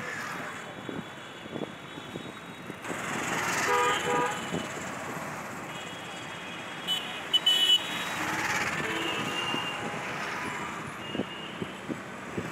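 Road traffic going past, with vehicle horns honking: a lower horn about four seconds in, then short, sharp high-pitched toots a few seconds later, which are the loudest sounds.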